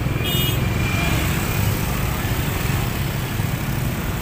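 Steady low engine rumble of road traffic. A brief high-pitched squeak sounds about a quarter second in.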